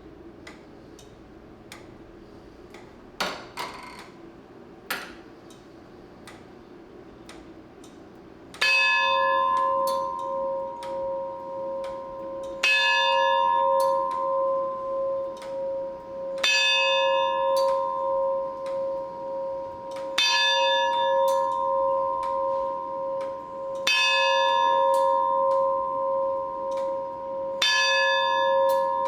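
The bell of a 1913 J. Smith and Sons tower clock, struck by the clock's chime mechanism six times at even intervals of about four seconds. Each blow rings on with a wavering hum until the next. Before the first strike, about eight seconds in, the clockwork makes light clicks and knocks as the mechanism gets going.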